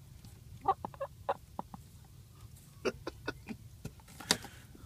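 A hen clucking in short, quick notes, in two runs of several clucks, with one sharper, scratchier sound about four seconds in.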